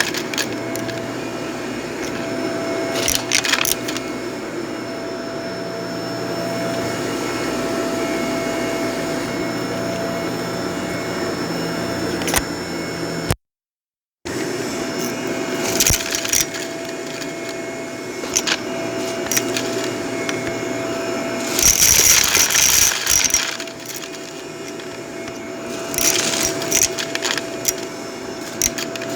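Vacuum cleaner running steadily over carpet, with several short bursts of crackling and rattling as debris is sucked up. The sound cuts out for a moment about halfway through.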